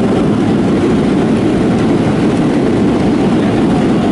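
Steady low rumbling noise of a jet airliner heard from inside the passenger cabin, at an even level throughout.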